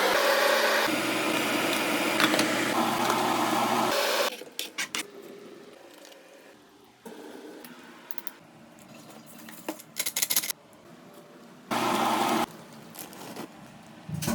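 Kitchen cooking sounds: a steady motor-like noise with a low hum for about four seconds, then quieter clatter and clicks of utensils, and another short steady burst near the end.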